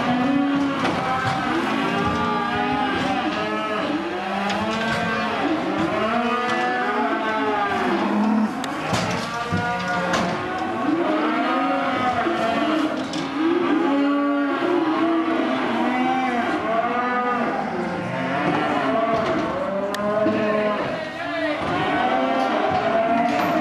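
A crowd of calves bawling inside a livestock truck during loading: many overlapping calls, each rising and falling in pitch, without pause.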